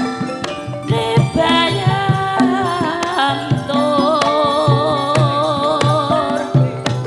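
Javanese gamelan-style campursari music: a sinden's wavering sung line over struck metal instruments and a steady beat of low drum strokes.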